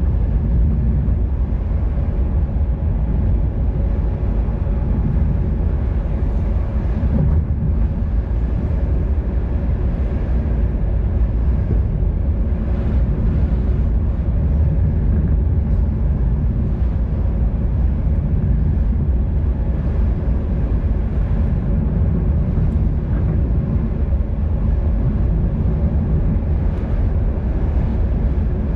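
Steady wind rushing over the microphone of a camera on a moving bicycle, mixed with road noise.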